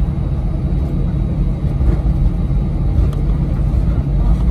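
Cabin noise of an Airbus A319-132 taxiing on the ground, heard inside the cabin by the window over the wing. It is a steady low rumble from its IAE V2500 engines at taxi power and the wheels rolling on the taxiway.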